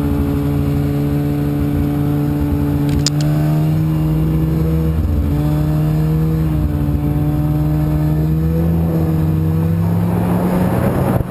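Snowmobile engine running steadily under way, its pitch dipping and rising slightly a few times as the throttle changes. A brief high click comes about three seconds in, and a rougher rushing noise builds near the end.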